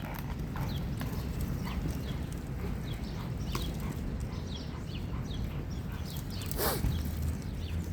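A dog moving about and mouthing a toy it won't give up: scattered light clicks, taps and scuffs, with one brief louder scuffling noise about six and a half seconds in.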